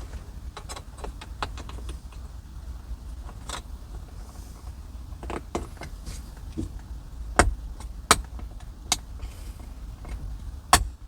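Car door interior parts being handled and fitted back into the door: small plastic clicks and rattles, with four sharper snaps in the second half as pieces are pushed into place.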